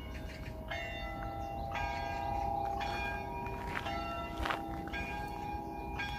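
Shrine bells ringing: notes of different pitch struck one after another, about one a second, each ringing on under the next.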